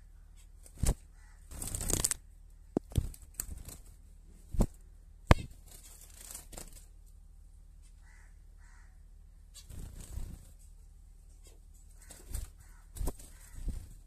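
Caged zebra finches moving about: a flurry of wing flapping and a series of sharp, irregular taps and knocks, with a couple of faint soft calls in between.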